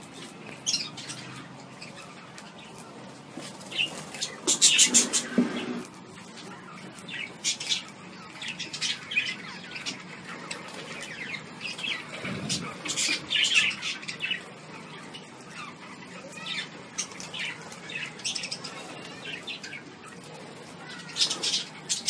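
A flock of budgerigars chirping and chattering: short high chirps come in clusters, loudest about four to six seconds in and again near the end.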